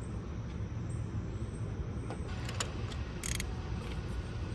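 Steady low rumble of a motor vehicle running, with a few short scraping sounds about three seconds in.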